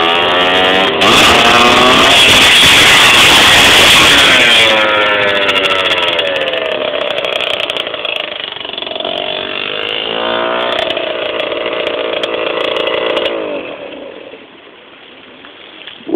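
Small two-stroke motorbike engine revving hard as it rides past close by, its pitch climbing and dropping with the throttle, then fading away into the distance and dying out near the end.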